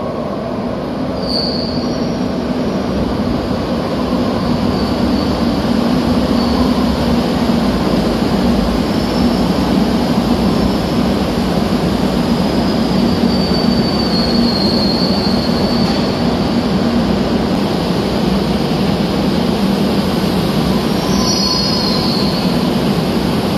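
Madrid Metro train running on the rails with a steady rumble, and brief high-pitched wheel squeals about a second in, around the middle and near the end.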